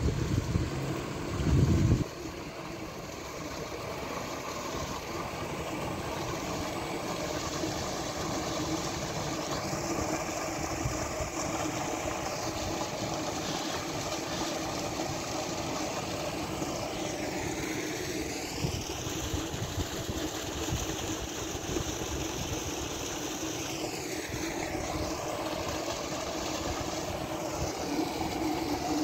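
Water from a solar tube-well pump gushing out of a discharge pipe and splashing into a concrete tank: a steady rushing noise. A brief louder low rumble in the first two seconds.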